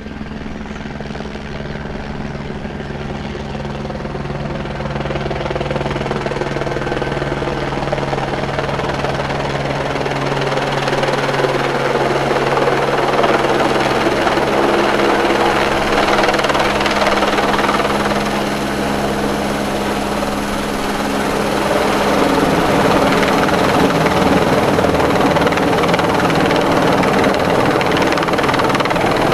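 Helicopter flying low overhead, its rotor and engine sound growing louder through the first half as it comes closer, then staying loud.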